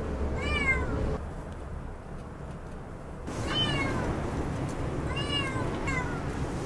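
A cat meowing four times, each call rising and then falling in pitch, the last one short.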